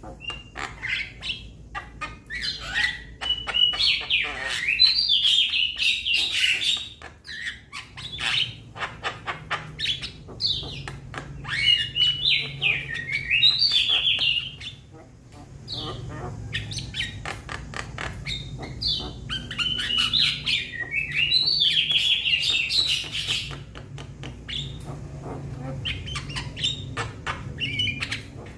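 Young Javan myna calling: bouts of quick, chattering, whistled notes mixed with sharp clicks, broken by short pauses. A faint steady low hum runs underneath from about a quarter of the way in.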